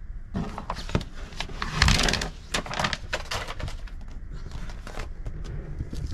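Pieces of Silent Coat sound-deadening mat being handled and put in place: rustling, crinkling noise with scattered light knocks and clicks, loudest about two seconds in.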